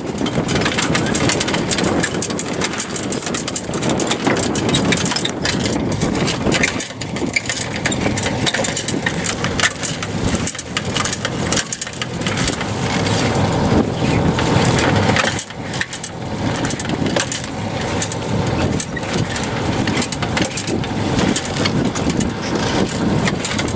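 Sailboat's sail flapping in the wind, with wind buffeting the microphone: a loud, continuous rush full of rapid cracks and rattles.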